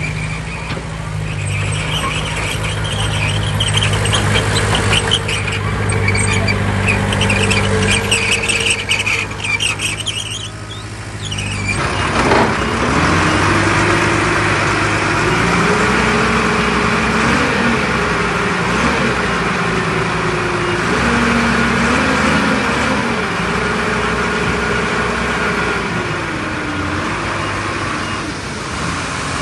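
Heavy diesel earthmoving machinery working. A steady engine runs with high squealing for the first eleven seconds or so. The sound then changes abruptly to an engine whose pitch rises and falls repeatedly as it is worked.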